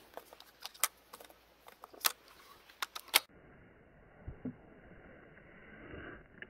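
Dry twigs and brush crackling and snapping close by, a scatter of sharp clicks, the loudest just before three seconds in. Then the sound turns dull and quiet, with a couple of soft low thumps.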